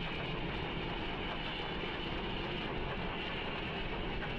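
Railway snowplow train running through deep snow, giving a loud, steady noise without breaks or rhythm.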